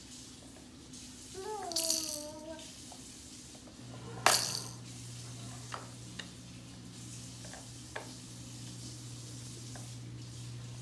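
A baby's short falling whine with a noisy shake about two seconds in, then one loud clatter a couple of seconds later and a few light clicks, consistent with a baby handling and dropping a toy. A steady low hum starts about four seconds in.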